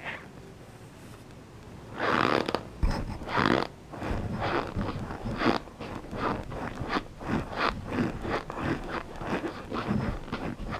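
Close-miked biting followed by crunchy chewing. Two loud crunching bites come about two seconds in, then a fast run of smaller crunches, about three or four a second.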